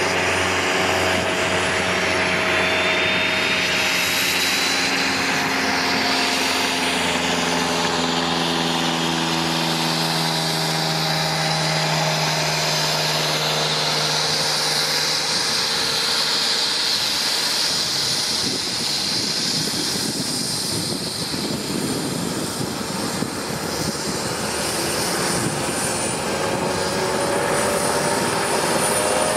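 Eurocopter MH-65 Dolphin helicopter running on the ground during startup: a steady turbine rush and whine from its engines and turning rotor. Several engine tones slowly shift in pitch, and a high whine rises a few seconds in as the engines spool up.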